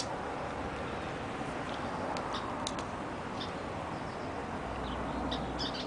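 A marker pen being drawn across the trailer's aluminum skin, giving a few faint short squeaks over steady outdoor background noise.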